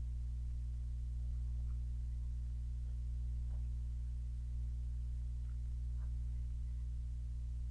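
Steady low electrical hum in the recording, with no other clear sound.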